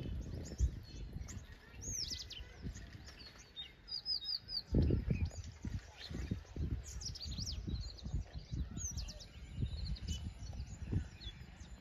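Small birds chirping in short falling notes, with a quick run of four notes about four seconds in, over the uneven low rumble of wind buffeting the microphone.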